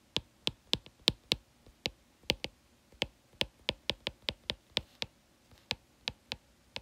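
Computer keyboard being typed on: sharp key clicks, about four a second, unevenly spaced.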